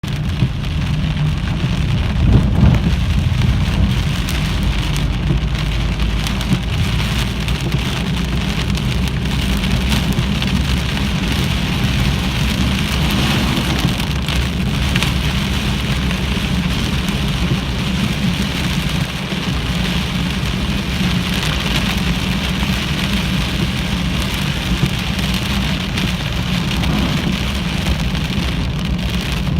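Heavy rain falling steadily, a constant hiss with a low rumble beneath it.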